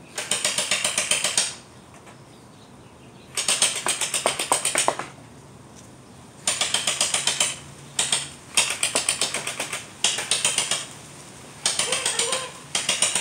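Battery-powered Orbeez gel-ball blaster firing on full auto: its motor-driven gearbox cycles in strings of rapid, evenly spaced clicks. About seven bursts of roughly a second each come with short pauses between.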